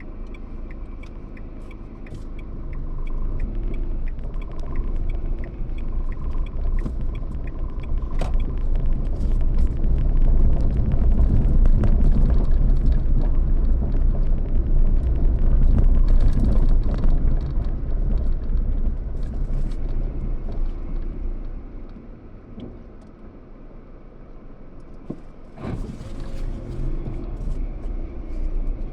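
A car on the move: a steady low road and engine rumble that builds up through the middle and eases off near the end, with scattered light rattles and one sharp knock near the end.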